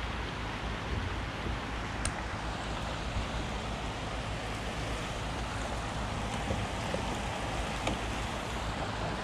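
Steady rushing of river water, with a low rumble and a few faint small knocks.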